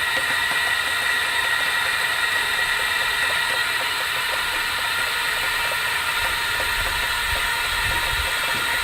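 Steady hiss and high whine of the compressed-air supply inflating the 6-inch LightRay spot-repair packer, as the pressure is taken up to about 8 psi.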